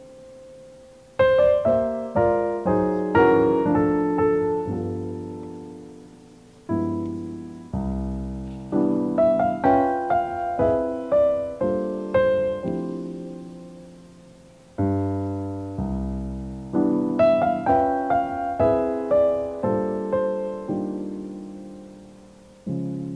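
Solo piano background music: short runs of notes, each phrase ending in a held chord that fades away, a new phrase beginning about every eight seconds.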